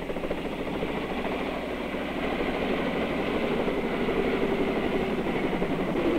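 Helicopter running on the ground, its engine and rotor making a steady, fast-pulsing noise that grows slowly louder.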